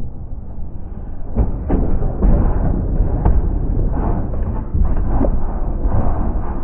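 Scrap metal being thrown off a truck onto a scrapyard pile: a string of heavy thuds and bangs, half a dozen or so at uneven intervals, over a steady low rumble.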